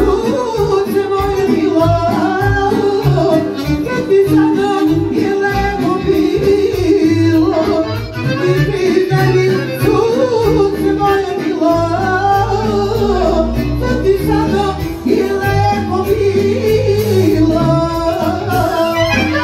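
Live folk band music led by accordion, with a wavering melody over a steady low beat.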